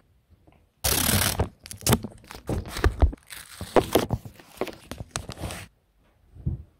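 Paper being handled right at the microphone: dense rustling and crinkling with sharp handling clicks for about five seconds, stopping abruptly, then a single dull thump near the end.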